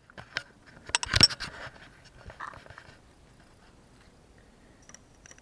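Hand tools being handled: a ratchet and sockets clinking and clattering, with a run of sharp clicks and the loudest clatter about a second in, then only faint rustling.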